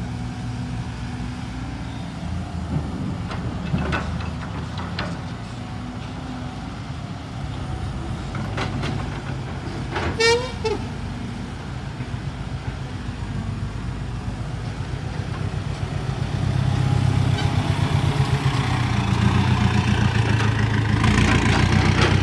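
Heavy diesel engines of an excavator and dump trucks running steadily, with a short horn toot about ten seconds in. Over the last several seconds a second dump truck's engine grows louder as it pulls up close.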